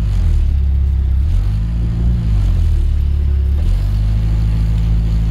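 Nissan 240SX engine heard from inside the cabin as the car drives off, the engine note rising and falling a few times with the gear changes.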